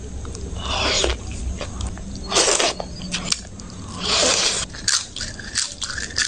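Close-miked eating sounds: chewing and biting, with wet mouth noises at irregular moments. Near the end comes a crisp bite into a papad.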